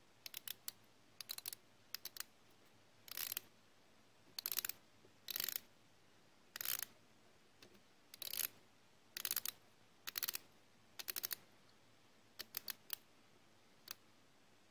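Unidirectional dive bezel of a Seiko Prospex Solar Tuna SNE498 being turned by hand: short runs of quick ratcheting clicks, about a dozen bursts roughly a second apart.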